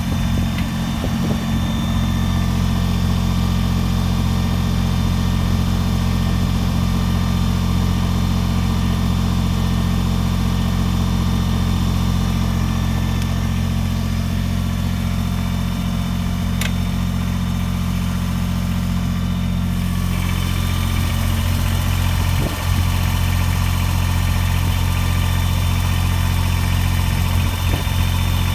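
Kubota BX23S compact tractor's three-cylinder diesel engine running steadily at idle, its tone shifting slightly about two-thirds of the way through, with a few brief knocks.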